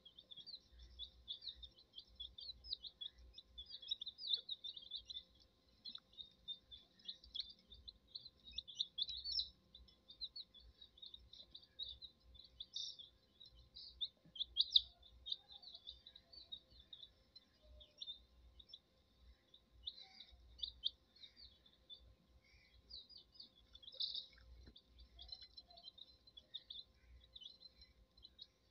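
A group of domestic chicks peeping, many short high peeps overlapping in a constant chorus.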